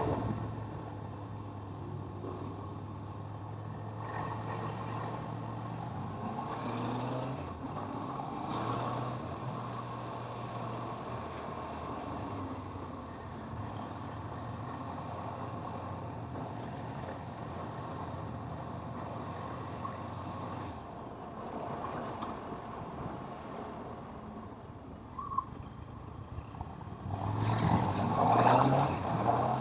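Kawasaki motorcycle engine running under way, holding a steady note with a few rises in pitch as it accelerates, the strongest climb through the gears near the end.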